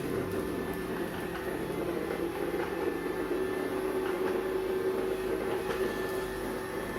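Robot vacuum cleaner running: a steady whir of its small motor with a steady hum, cutting off suddenly at the end.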